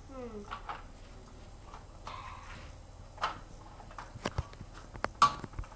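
A few scattered knocks and clicks, the loudest about three and five seconds in, with a short falling sound near the start and a brief hiss about two seconds in.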